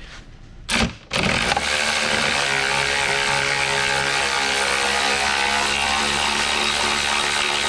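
Cordless impact wrench hammering steadily on a snowmobile's ski mounting bolt, undoing it. A short burst comes just under a second in, then about seven seconds of continuous run.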